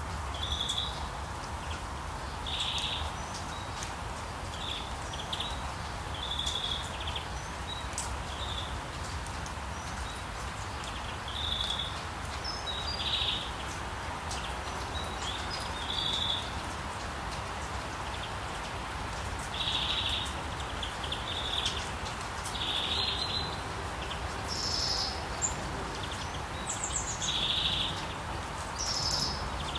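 Birds calling in short, repeated notes every second or two over a steady hiss of rain; a few higher chirps join near the end.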